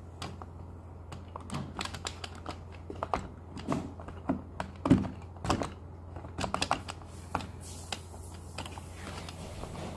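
Plastic parts of a Hot Wheels Stunt and Splash Car Wash playset being handled and fitted together: irregular light clicks and knocks, busiest in the middle, over a steady low hum.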